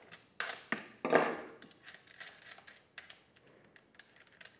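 Metal-on-metal clicks and clinks from a scrench working the guide bar nuts off a chainsaw's bar studs. The loudest is a clank with a short ring about a second in, as the steel tool is set down on the wooden workbench, followed by lighter taps from handling the nuts.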